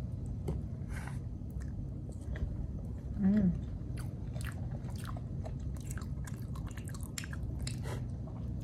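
A person eating close to the microphone: chewing, with many small clicks of a plastic fork and spoon against a plastic food box. A short hum of the voice comes about three seconds in.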